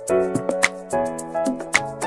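Background music: a melody of short notes over a fast, even ticking beat.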